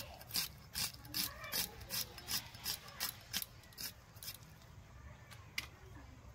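Red onion being sliced on a boti, a curved iron blade fixed upright on a stand: crisp, even cuts about two or three a second, thinning out to a single cut after about four seconds.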